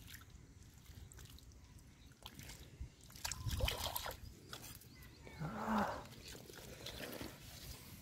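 Faint wet squelches and small knocks of hands working soft, wet mud, with a short call-like cry about five and a half seconds in.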